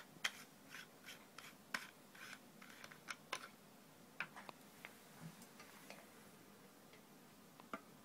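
Light clicks and scrapes of hard plastic parts being handled and fitted together: the lid and cup of a cup-noodle-shaped ultrasonic humidifier. They come in a quick run of a dozen or so in the first few seconds, then a few scattered ones.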